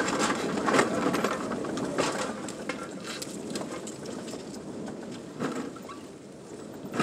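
Rain pattering on a car, heard from inside the cab: a steady rushing hiss with many irregular sharp taps of drops.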